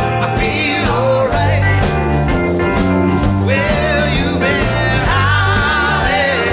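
Live rock band playing with singing over bass, guitar and drums, the bass notes steady under a regular beat.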